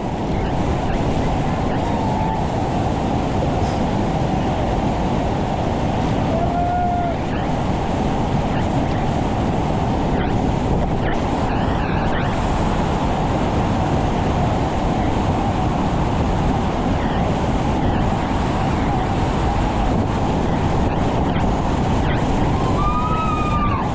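Loud, steady rush of whitewater rapids below a river ledge drop, heard from a kayak sitting in the churning water.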